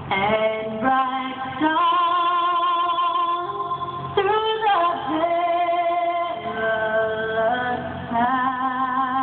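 A woman singing solo, slow long held notes with vibrato and slides between them.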